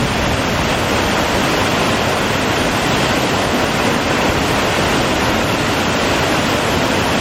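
A waterfall pouring, a loud, steady rush of water without a break.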